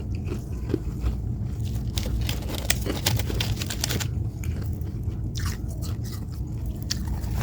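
A person biting and chewing a mouthful of frost close to the microphone: a quick run of sharp, crisp crunches over a low rumble of chewing.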